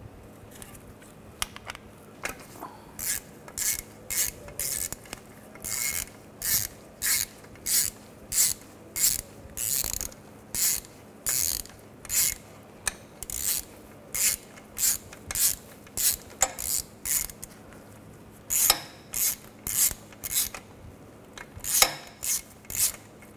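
Hand ratchet clicking in quick back-and-forth strokes, about two a second with a couple of short pauses, as it backs out the oil return line bolts.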